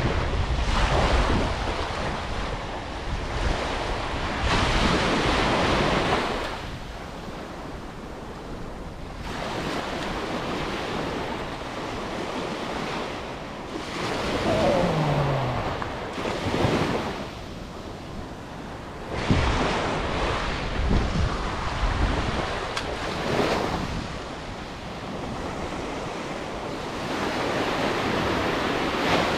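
Small waves breaking and washing up a sandy beach, the surf swelling and fading every few seconds, with wind rumbling on the microphone.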